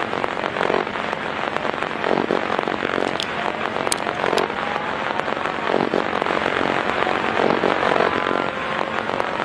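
A car passing at speed: a steady, dense crackling rush of engine, exhaust and road noise, with a few sharp cracks around three to four seconds in.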